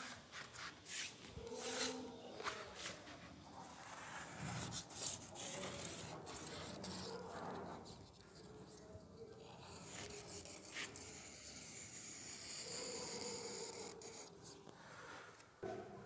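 Faint, irregular scraping and rubbing of a small knife blade along the edge of a wet tile-adhesive bed, clearing adhesive from the joint.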